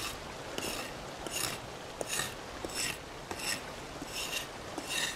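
Serrated back of a survival knife scraping wet bark off a wooden stick in short, even strokes, about one every three-quarters of a second. The damp outer layer is being stripped to leave dry wood for small flames to catch onto.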